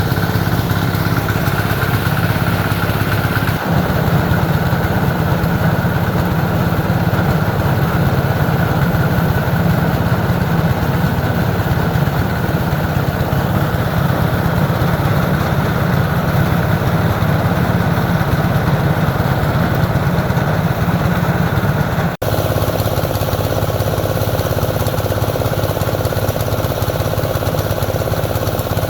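A small engine running steadily, with the sound breaking off abruptly twice, about four seconds in and near the end.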